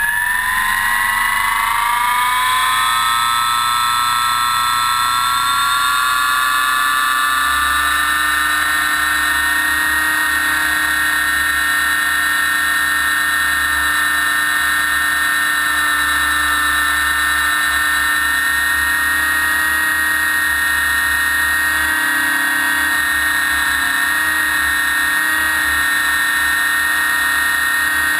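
Align T-Rex 600 EFL Pro electric RC helicopter's motor and drive gears whining, heard from a camera mounted on the helicopter: the pitch rises over the first couple of seconds as the rotor spools up, then holds steady. A low rumble comes in about seven seconds in.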